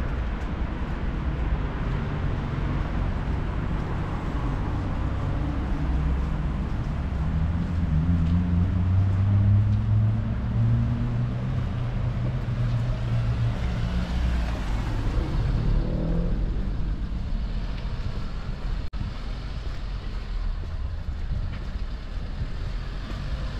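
City street traffic: a motor vehicle's engine hum builds, is loudest about ten seconds in as it passes close, then fades, over a steady low rumble.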